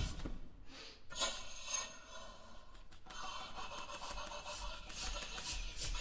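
Experimental chamber music made of rubbing and rasping noises, played with extended techniques on instruments and objects. There are a few short scraping strokes in the first two seconds, then a steadier rasping hiss.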